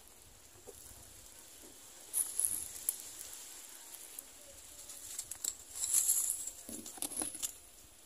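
Society finch nestlings stirring in their grass nest: a few bursts of thin, high-pitched hissing and crackling, about two seconds in and again around six to seven seconds.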